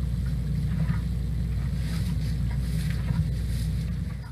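Steady low rumble of barn room tone, with faint scattered rustles and ticks above it; it fades out near the end.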